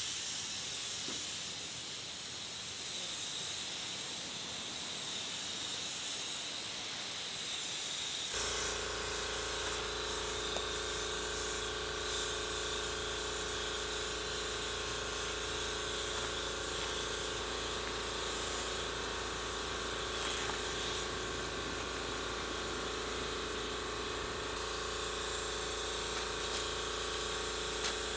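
Compressor-fed paint spray gun hissing steadily as it sprays paint onto a truck body. About eight seconds in, a steady machine hum with several tones joins beneath the hiss.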